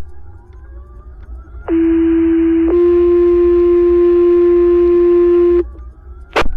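Fire dispatch two-tone paging tones over a radio channel: a steady tone of about a second, then a second steady tone of about three seconds, alerting the volunteer fire department's pagers before the dispatch call. A sharp radio click near the end.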